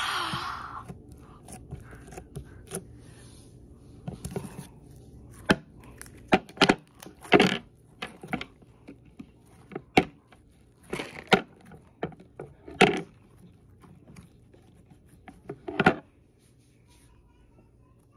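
Slime being pressed and squished against the strings of a tennis racket, making an irregular run of sharp pops and crackles. The pops stop about two seconds before the end.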